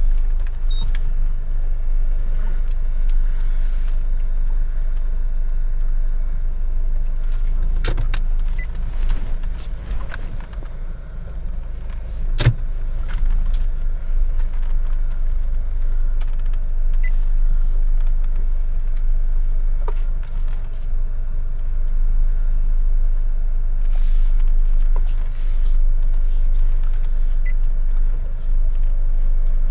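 Car engine and road rumble heard from inside the cabin while driving along a narrow, difficult entry track, a low steady drone with scattered knocks and clatters, the sharpest about twelve seconds in.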